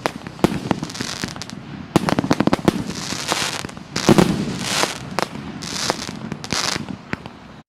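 84-shot fireworks battery with 1.2-inch and 2-inch calibre tubes firing in quick succession: sharp bangs and bursts mixed with several short crackling hisses, loudest about four seconds in, stopping abruptly near the end.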